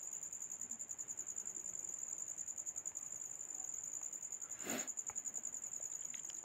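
Insect trilling steadily: a high, rapidly pulsing tone that does not let up. A short soft rustle cuts across it about three-quarters of the way through.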